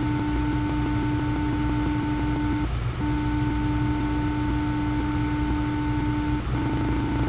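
A steady electronic tone from a software waveform generator, passed through a low-frequency oscillator node. It cuts out briefly about two and a half seconds in and again near the end, returning with a fast flutter. A steady low hum runs underneath.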